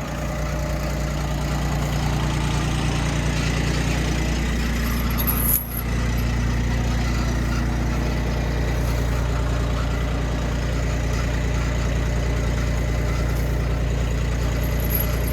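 Engine idling steadily, with a brief drop in sound about five and a half seconds in.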